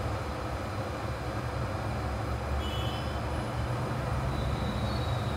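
Hot air rework station blowing steadily while it heats a phone's CPU for removal.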